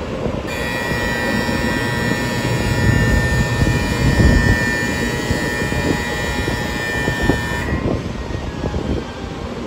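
Station platform departure bell: a steady electronic ringing tone that starts about half a second in and stops sharply after about seven seconds, over the low rumble of a Shinkansen train standing at the platform.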